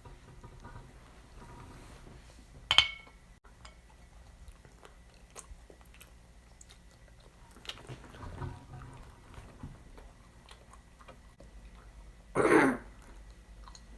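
Close-up chewing and mouth sounds of people eating, with faint small clicks throughout. There is one sharp loud click about three seconds in and a short loud noisy burst near the end.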